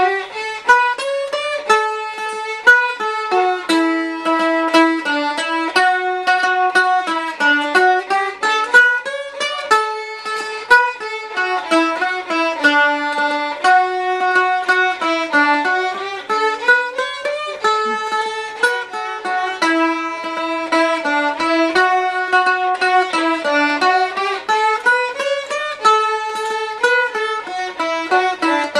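Fiddle playing a fast, continuous folk-style melody of running notes that rise and fall, with plucked string accompaniment.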